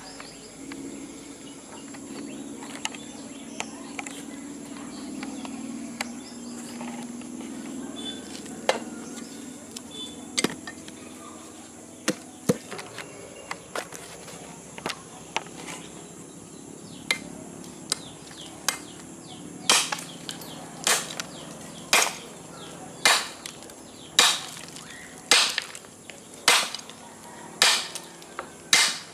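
A golok (bone-chopping machete) blade striking a very hard rock. It gives a few scattered sharp hits at first, then a steady run of hard chops about once a second through the second half, and the stone does not break.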